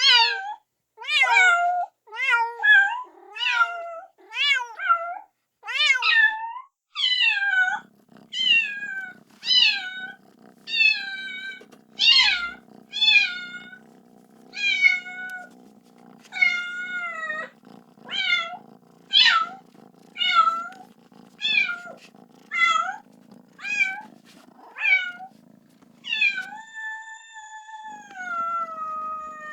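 Kitten meowing over and over, calling for its mother: short, high-pitched cries about once a second, ending with one longer drawn-out meow. From about eight seconds in, a low steady hum sits under the calls.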